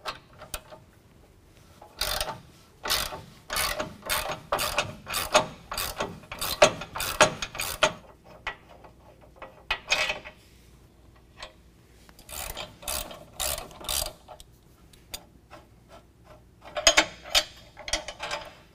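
Hand ratchet with a 24 mm socket backing out a frame-extension bolt, its pawl clicking two or three times a second in three runs with short pauses between.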